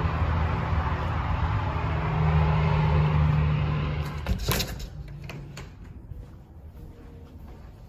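Steady low outdoor rumble with a faint hum, cut off about four seconds in as a door is shut. A few sharp knocks from the door follow, then quiet indoor room tone.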